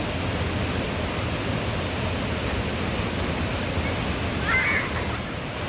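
Mountain stream water rushing and cascading in a steady, even hiss, with one brief high chirp at about four and a half seconds.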